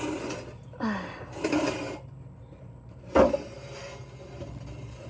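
A wooden plank being shifted by hand, scraping and rubbing for a second or so, then knocking once with a solid thud about three seconds in.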